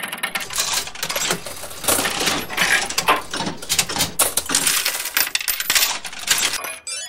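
A dense, irregular clatter of coins jingling and dropping, which cuts off abruptly near the end.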